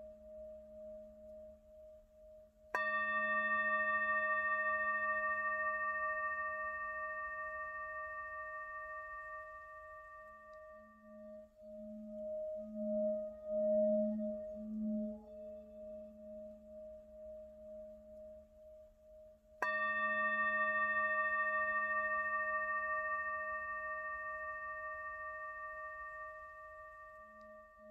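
A bell struck twice, about seventeen seconds apart, each stroke ringing out and slowly fading, over a steady, wavering drone.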